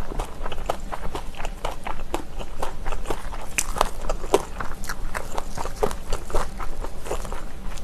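Close-miked mukbang chewing of crunchy kimchi: quick crunches and clicks, several a second.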